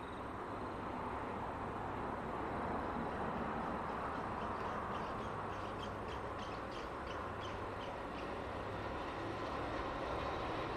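NSW 81 class diesel-electric locomotives, EMD two-stroke V16 engines, working hard under load as they haul a heavy train up a steep grade, a steady low drone growing louder as they approach. A quick series of short high chirps sounds over it in the middle.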